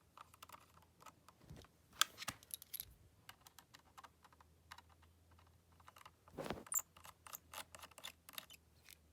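Faint, irregular small clicks and ticks of screws and a small screwdriver being worked on a MacBook Pro's case, with a louder handling noise about six and a half seconds in.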